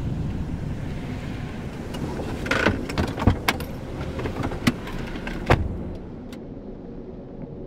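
Steady low road rumble inside a moving car, with a handful of sharp, irregular clicks and knocks in the middle; the rumble drops away near the end.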